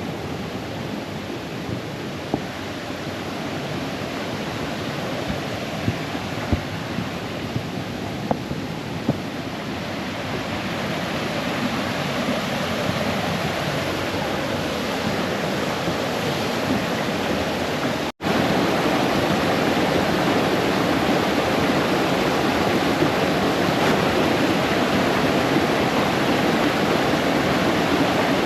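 Brook water rushing and cascading over stones, a steady noisy rush. It breaks off for an instant about eighteen seconds in, then comes back louder and fuller.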